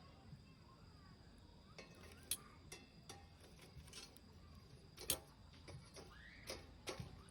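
Scattered light clicks and knocks at irregular intervals, a few with a short ringing tone.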